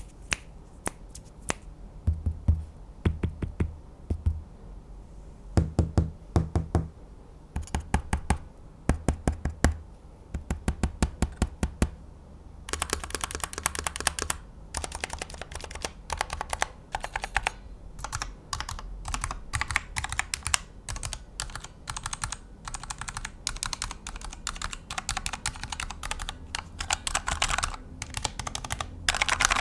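Mechanical keyboard typing test. For about the first twelve seconds, scattered keystrokes and short runs each land with a soft, low thud, as from the linear Cherry Viola clear switches on the Cherry MV 3.0 RGB. About thirteen seconds in, faster typing takes over with sharper, brighter clicks, typical of clicky Gateron blue switches.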